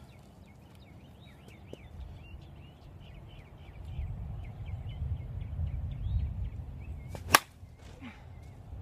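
A single sharp crack about seven seconds in as an Avarice G2 softball bat hits a .44 COR softball off a batting tee.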